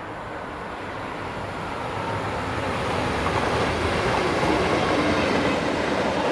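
A DB Class 66 diesel locomotive's two-stroke V12 engine, with its train of hooded steel wagons running on the rails, growing steadily louder over the first few seconds as it approaches and passes close by.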